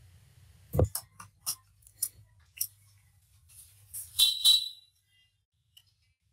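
About six separate clicks from a computer keyboard and mouse in the first few seconds, then a louder, scratchy burst about four seconds in, over a faint low hum.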